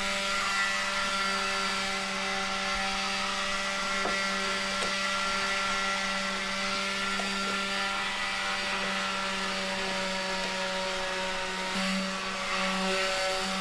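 A small motor running steadily, a constant pitched hum with a few faint ticks.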